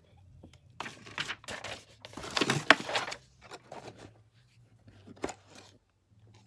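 Packaging being handled and torn open by hand: a run of crinkling and tearing for a couple of seconds, then lighter rustles and a single sharp click.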